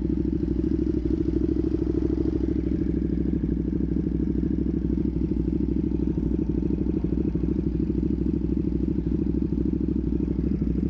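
Ducati Panigale V2's 955 cc twin-cylinder engine idling steadily through a full titanium Vandemon exhaust, a pulsing rumble at an even level.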